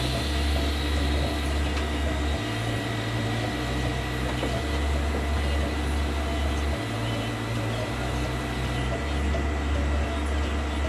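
Steady hum and hiss from running welding equipment, with a constant thin high whine and a low hum that cuts in and out every second or two.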